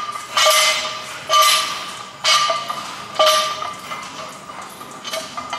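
Barbell loaded with York 45 plates clinking during bench-press reps: a sharp metallic clink about once a second, each one ringing out at the same pitch and fading.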